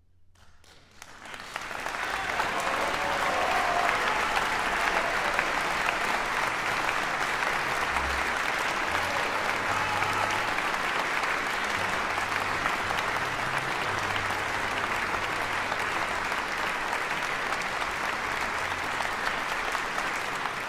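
Audience applauding, starting about a second in and quickly swelling to a steady, dense clapping that cuts off suddenly at the end.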